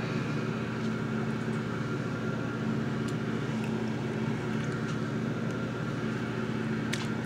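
Steady machine hum with a low, even drone, with a couple of faint clicks, one about three seconds in and one near the end.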